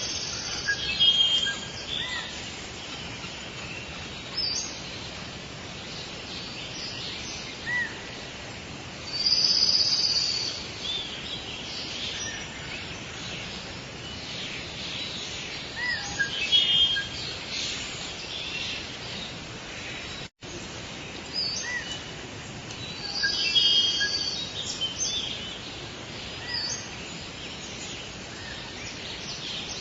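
Tropical forest ambience: many birds calling and chirping over a steady high hiss, with louder bursts of calls now and then. About two-thirds of the way through the sound cuts out for a split second.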